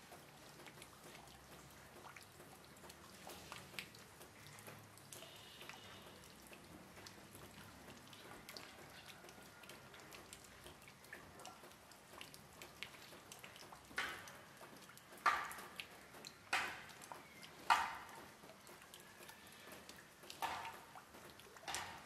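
Water drops dripping: a faint patter for most of the time, then about six separate louder drips landing in the last third, a second or so apart.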